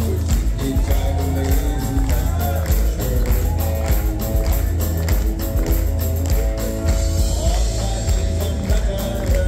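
Country band playing live and loud: drums keeping a steady beat over bass, guitars and fiddle.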